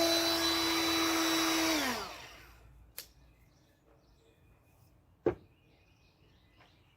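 Wood router running at a steady high whine while cutting a hinge recess, then switched off about two seconds in and spinning down with a falling whine. A light click follows, then a single sharp knock.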